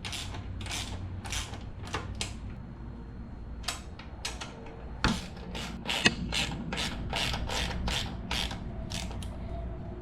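Socket ratchet clicking in quick repeated strokes as the brake caliper bolts of a minibike are tightened down, with a short pause about two and a half seconds in.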